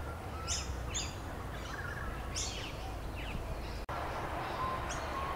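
Nature-ambience sound effect: small birds chirping repeatedly, short high notes about once or twice a second, over a steady outdoor hiss, with a momentary dropout about four seconds in.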